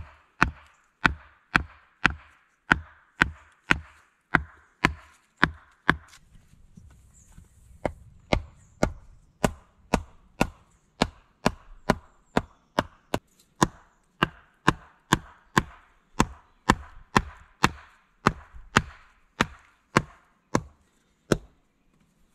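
A wooden mallet driving wooden stakes into the ground, with sharp, even knocks at about two a second. The strikes pause for a couple of seconds around six seconds in, then resume at the same pace.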